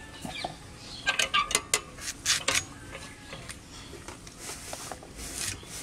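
Raw green mangoes being cut on a boti: irregular sharp crunching cuts and the knock of pieces dropping into a bamboo basket, busiest about one to two and a half seconds in. The fruit has turned fibrous, which makes it hard to cut.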